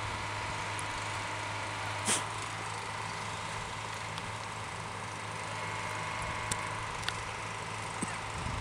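Steady low hum of an idling engine, with one short knock about two seconds in and a couple of faint ticks later.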